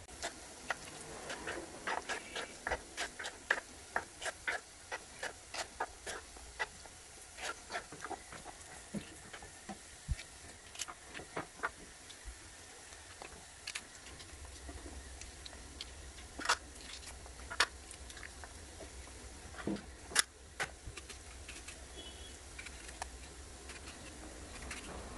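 Kitchen knife cutting flat beans on a wooden chopping board. A run of quick, light chops goes on for several seconds, then gives way to scattered single clicks and snaps.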